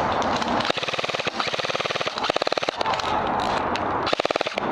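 Airsoft automatic rifle firing on full auto: a burst of rapid shots, about fifteen a second, lasting about two seconds, then a short burst near the end.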